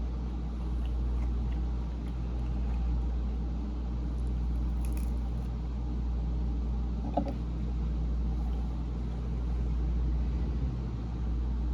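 A steady low rumble, with a couple of faint short clicks about five and seven seconds in.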